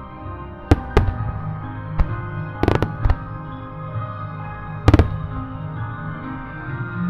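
Fireworks shells of a music starmine bursting in a string of about seven sharp bangs, the loudest about five seconds in, over the show's music with held tones playing throughout.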